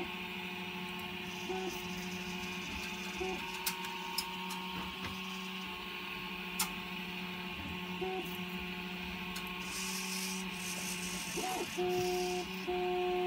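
Servo motors in a 3D-printed Drupp robot neck whirring in short runs as they shake the head side to side in a 'no' gesture, over a steady hum, with a few sharp mouse clicks.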